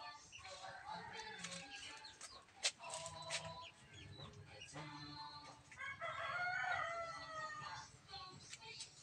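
A rooster crowing, one long crow about six seconds in, with shorter clucking calls around it. A sharp click is heard a little under three seconds in.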